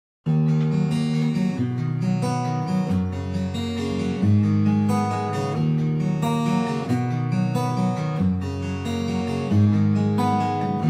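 Background music led by a strummed acoustic guitar, starting abruptly just after the start.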